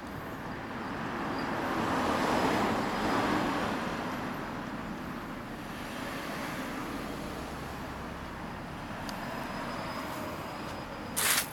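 Road traffic going by: a vehicle passes, swelling to its loudest a couple of seconds in and then fading to a steady background hum. Near the end comes one short, sharp hissing burst.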